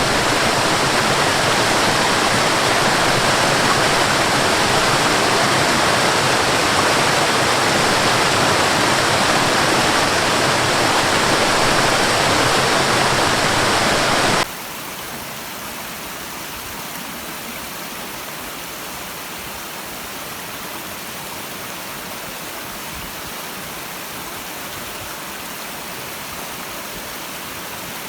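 Waterfall: steady, loud rushing water. About halfway through it cuts abruptly to a quieter steady rush of water.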